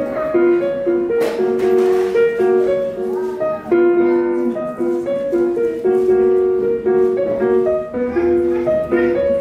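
Solo piano played live: a flowing melody of single notes over a steady accompaniment, note following note without a break.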